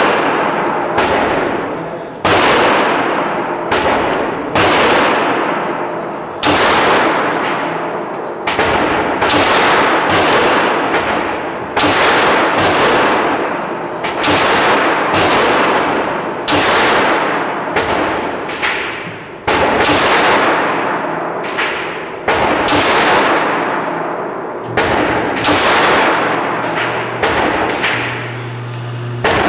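9mm pistol fired in a steady string at an indoor range, about one shot a second, each crack followed by a long echoing decay off the walls of the range.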